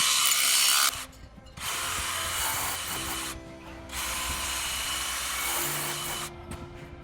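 Power drill drilling fixing holes for the rubber cow mats, in three runs with short pauses, stopping about six seconds in.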